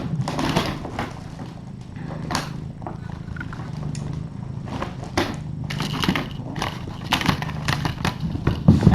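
Things being handled: irregular crinkling, rustling and light knocks, a few every second, over a steady low hum.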